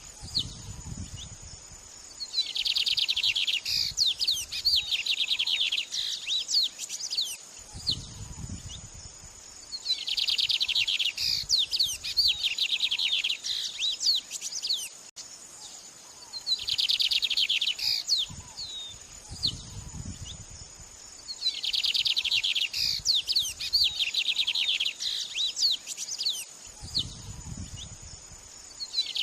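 White-rumped shama song: varied whistles and chirps, with a dense rapid trill that comes back four times, over a steady thin high insect-like drone.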